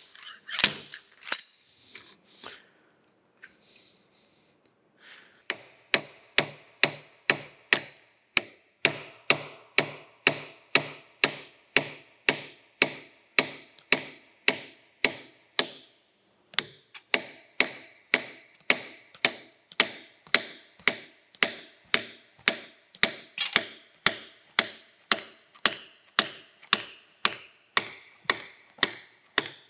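Hammer blows on a steel punch set into the cast-iron tailstock of a Monarch 612 lathe, ringing metallically, about two a second, to knock loose a seized quill clamp. A few scattered blows come first, then after a short quiet spell a steady train of strikes begins and runs on with one brief break in the middle.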